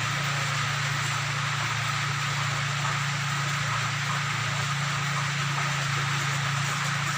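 A steady low machine drone with an even hiss over it, unchanging throughout.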